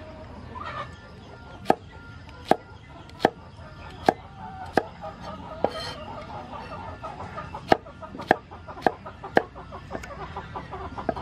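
Steel cleaver chopping okra on a wooden chopping board. About a dozen sharp chops come one at a time, roughly half a second to a second apart, with a pause of about two seconds near the middle.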